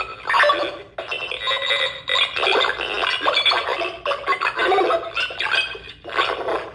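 Circuit-bent 1978 Texas Instruments Speak & Spell playing its synthesized speech warped into glitchy, pitch-modulated electronic tones. It comes in choppy stretches that cut off abruptly about every one to two seconds.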